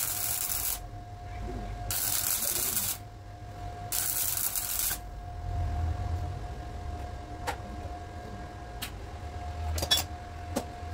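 MIG welder laying short tack welds on a car body's sill: three crackling, sizzling bursts of about a second each, roughly two seconds apart. A faint steady hum runs underneath, and a few sharp clicks come near the end.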